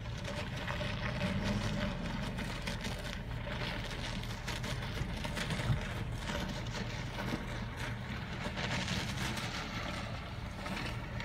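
Off-road SUV driving through deep muddy water: a steady engine hum under a continuous wash of splashing water.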